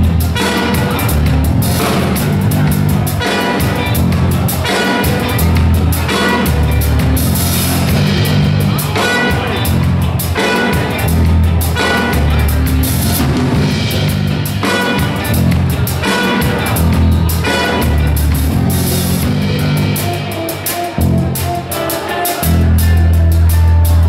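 Live New Orleans funk band playing an instrumental passage: drum kit, electric bass, keys and guitar keeping a steady groove under a trumpet. Near the end the band drops back briefly, then the bass comes back in louder.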